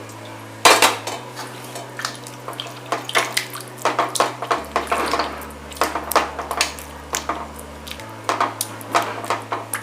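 A spoon scraping and clinking against a kadhai in quick, irregular strokes, stirring milk and cheese into a white sauce as the cheese melts; one louder knock about a second in.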